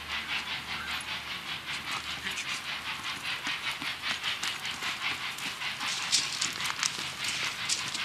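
Exhaust of Santa Fe 3751, a 4-8-4 Northern steam locomotive, chuffing in a quick, even beat as it approaches, growing louder toward the end.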